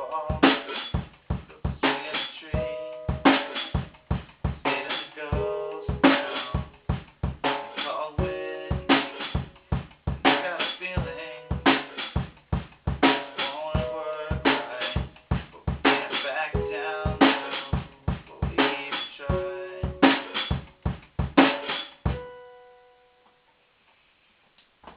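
One-man band playing an instrumental passage: steady kick and snare hits under pitched instrument notes, ending about 22 seconds in on a last note that rings out and fades.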